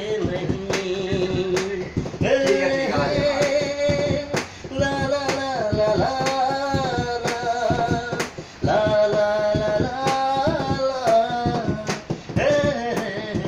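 A man singing a Bollywood film melody unaccompanied, holding long, slightly wavering notes, with repeated sharp clicks alongside.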